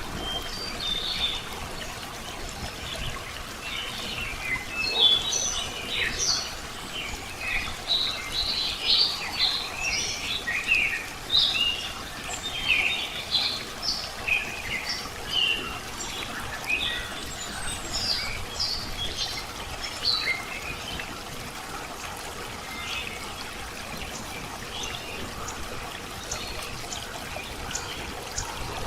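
Many small birds chirping and calling in quick overlapping bursts over a steady sound of trickling running water; the chirps thin out after about twenty seconds.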